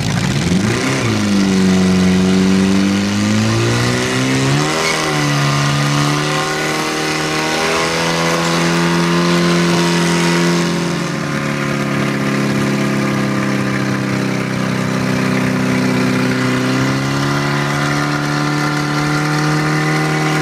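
Demolition derby car's engine, just started, revved up twice in the first few seconds, then running steadily with a slight rise in pitch near the end.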